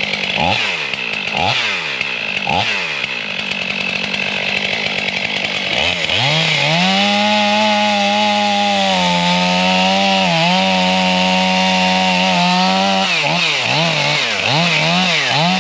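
Two-stroke chainsaw revved in three short blips, then held at full throttle for about seven seconds from about six seconds in, making a small cut into the tree, then blipped again several times near the end.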